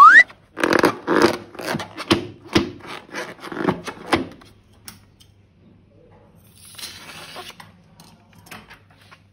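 Slime being squeezed and worked by hand: a run of squelches, two to three a second, for about four seconds, then a brief hiss later on. A short rising squeal comes right at the start.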